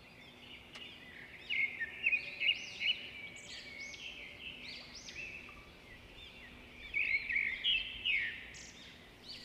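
Small birds chirping: many short, quick, high notes, in two louder spells, one a little after the start and one near the end.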